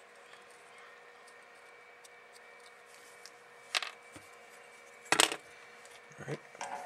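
Small sharp clicks on a workbench: the freshly desoldered diode drops onto the bench a little before halfway, then a louder, sharper tap comes about a second and a half later, over a faint steady hum.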